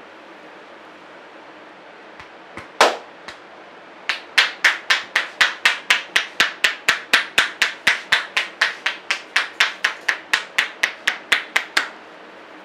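A barber's hands striking the head in percussive massage strokes: a few single taps, then a fast, even run of sharp slapping pops, about four a second, lasting about eight seconds.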